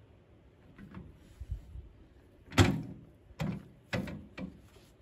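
Shovel scraping and knocking into loose soil and stones as earth is dug and loaded into a wheelbarrow: a handful of separate rough scrapes and thuds, the loudest about halfway through.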